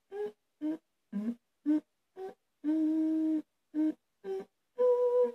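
A woman's voice singing a tune to herself in a string of short notes with gaps between them. She holds one long note about three seconds in and a higher one near the end.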